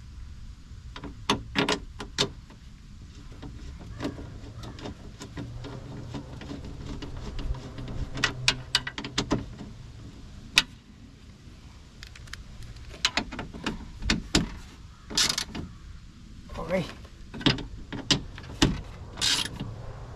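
Irregular metallic clicks and knocks from a hand tool working on a car's power window motor and regulator inside the open door shell, with a low steady hum for a few seconds in the middle.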